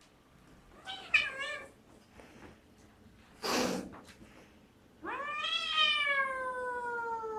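Siamese cats fighting: a short wavering yowl about a second in, a hiss about three and a half seconds in, then a long drawn-out yowl from about five seconds in that slowly falls in pitch. These are the threat calls of an angry cat.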